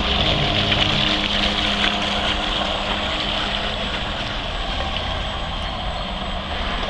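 Radio-controlled model boats on the water, their motors running steadily, with a low hum that fades out about halfway through.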